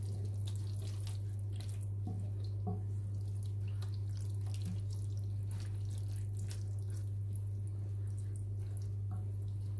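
Chili con carne simmering in a pan and being stirred with a wooden spoon: small irregular pops and clicks over a steady low hum.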